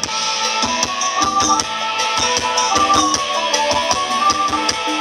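Live band playing an upbeat Thai ramwong dance tune, with a saxophone carrying the melody over a steady drum beat.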